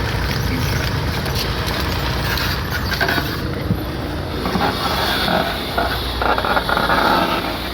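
Tata Safari running with a rear wheel turning, giving a steady rumbling mechanical noise that the mechanic traces to that wheel.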